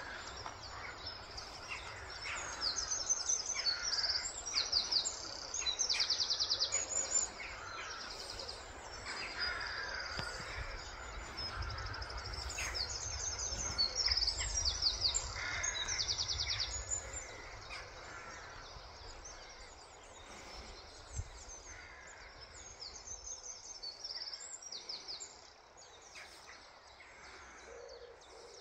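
Dawn birdsong: several birds singing and calling, with high rapid trills repeating over and over, over a low outdoor rumble. It is loudest through the first half and quieter after about eighteen seconds in.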